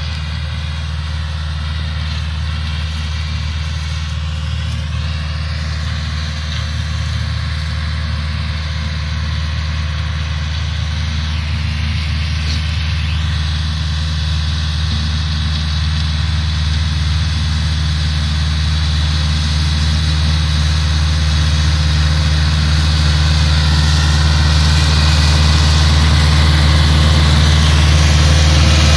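Deutz-Fahr DX 3.75 tractor's diesel engine running steadily under load while driving a side-mounted mower through hay, getting gradually louder as the tractor comes closer.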